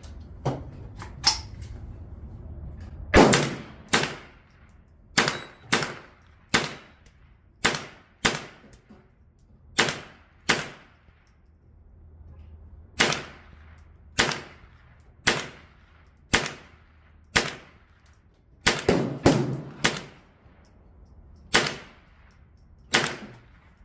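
A .22LR lever-action rifle fired in a string of about twenty sharp shots, roughly a second apart with some in quick pairs, with hit steel targets ringing.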